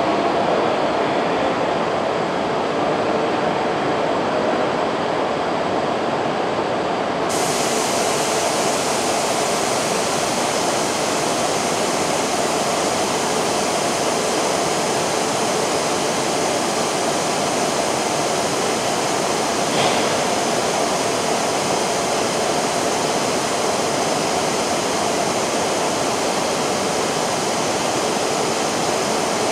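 E5 series Shinkansen train drawing to a stop at the platform and then standing with a steady rushing hum from its equipment. About seven seconds in, a steady hiss starts suddenly and carries on; a single short click comes near the twenty-second mark.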